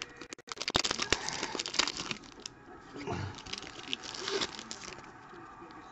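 Foil trading-card pack being torn open and crinkled by hand: a quick run of crackly crinkles for the first couple of seconds, then sparser, quieter rustles.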